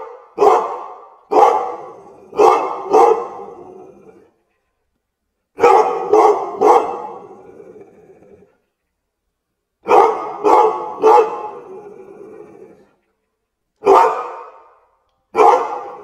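Dog barking in repeated groups of two or three loud barks, each group trailing off in an echo before a short pause.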